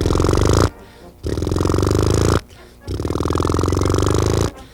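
A man imitating a Volkswagen engine with his mouth and throat: three rapid, pulsing buzzes about a second long each, with short breaks between them.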